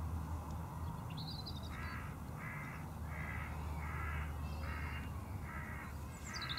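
A bird calling: seven harsh calls in a row, about one every 0.7 seconds, beginning nearly two seconds in, with a short, higher chirp just before them. A steady low hum runs underneath.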